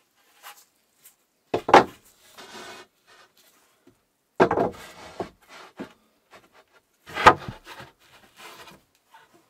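Large hollow 3D-printed plastic mold sections set down hard on a wooden floor and slid into place: three loud knocks about three seconds apart, each followed by a short scrape, with lighter taps and rubbing between.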